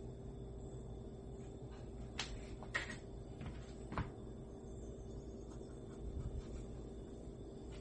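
A few short, light knocks and clicks, about three in the first half, over a steady low hum.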